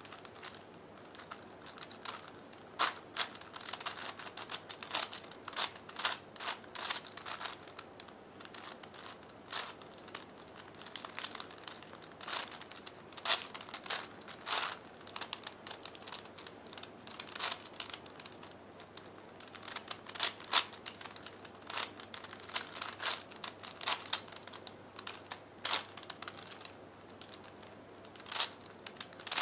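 Plastic layers of a 5x5x5 V-Cube puzzle clicking and clacking as they are turned by hand, in irregular clusters of quick clicks with short pauses between.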